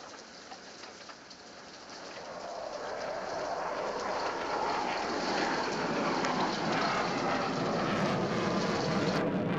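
Added aircraft sound effect: a rushing engine noise that swells over a few seconds as it draws near and then holds loud, with a brief drop near the end.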